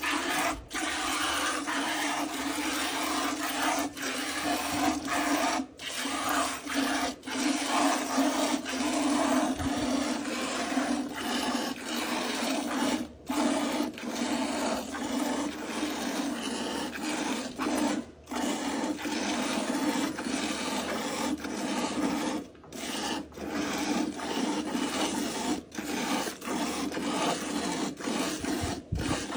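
Milk squirting from a cow's teats into a metal pail that holds frothy milk, hand-milking. It makes a steady rasping hiss, broken by a few short gaps.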